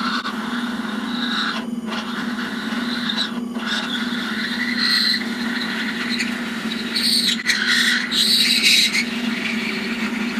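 Drill press motor running steadily while a brad-point bit bores into a wooden board, cutting an offset hole that overlaps the last one to lengthen a slot. Each plunge adds a shrill, whining cutting noise over the hum, loudest about seven to nine seconds in; an offset hole is harder for this bit to drill.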